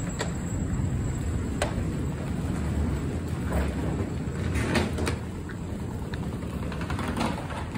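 Steady low rumble with a few light, scattered knocks and clicks, picked up by a phone carried while walking.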